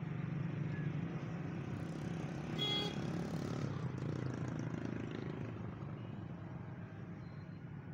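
Road traffic on a nearby street: a steady low engine rumble from passing vehicles, with a brief high-pitched tone about two and a half seconds in.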